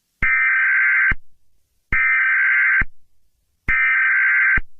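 Emergency Alert System SAME header: three identical bursts of digital data tones, each just under a second long, with gaps of about three quarters of a second between them. This is the coded header that opens an EAS alert.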